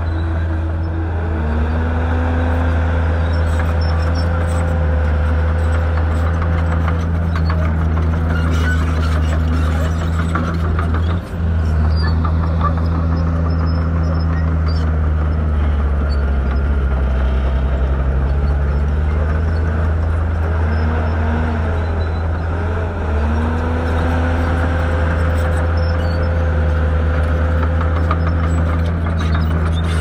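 Heavy diesel earthmoving machinery running steadily, its engine note rising and falling several times as it works, with scattered metallic clanks and rattles.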